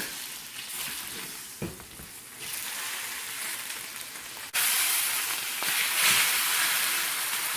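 Fat cap of a bone-in ribeye sizzling as it sears against a hot cast-iron skillet, with a short knock about one and a half seconds in. The sizzle jumps suddenly louder about four and a half seconds in, as more of the fat meets the pan.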